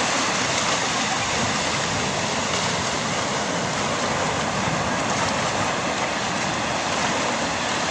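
Steady rushing noise of sea surf breaking on the beach, even and unbroken.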